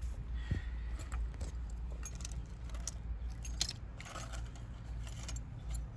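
Small metal tool pieces clinking and rattling as they are handled and tried for fit, a series of light clicks with the loudest about three and a half seconds in, over a low steady hum.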